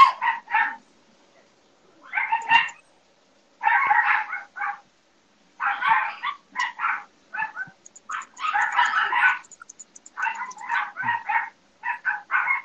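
Dogs yapping in rapid, high-pitched volleys: about seven bursts of quick barks with short pauses between.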